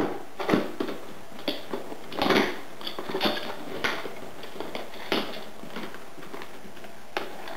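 Cardboard box being opened by hand: irregular scrapes, taps and rustles as the flaps are lifted and folded back.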